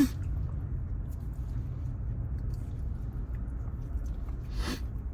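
People chewing food, with faint small mouth and eating clicks and a short noise near the end, over a steady low hum.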